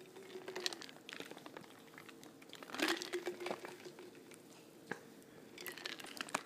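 Crackling and rustling handling noise right at the phone's microphone, coming in three short clusters of clicks, with a faint soft hum about three seconds in.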